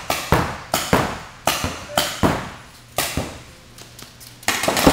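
Paintball markers firing reusable Reball rounds: sharp irregular shots, a few a second, thinning out in the middle and then breaking into a fast string of shots near the end.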